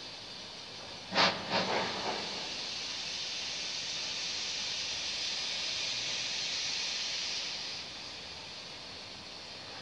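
A steam locomotive, out of sight, releases steam: one sharp burst about a second in, three smaller ones close behind it, then a steady hiss of escaping steam for about six seconds that dies away near the end.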